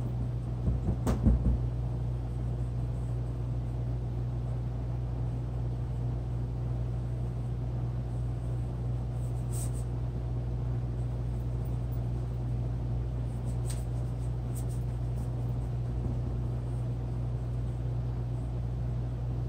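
Steady low hum with a short cluster of knocks about a second in and a few faint clicks later on.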